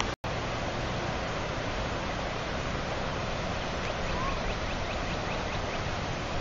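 Floodwater rushing steadily, a full, even noise. The audio cuts out for an instant just after the start. In the second half a faint run of short, quick bird calls sounds over the water.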